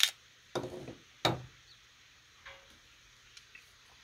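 A few sharp metallic clicks and knocks in the first second and a half as the magazine of a Ruger Mark III .22 pistol is released and drawn out of the grip, then laid on a wooden table. Fainter ticks of handling follow.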